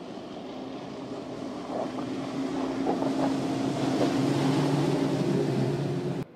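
Four Mercury 250 HO outboard motors on a 39-foot Midnight Express patrol boat running at high speed. The engine hum grows louder as the boat passes close, over the rush of hull and spray on the water. The sound cuts off suddenly near the end.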